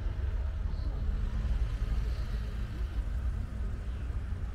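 City street traffic noise with a steady low rumble, heard from a bicycle on the move.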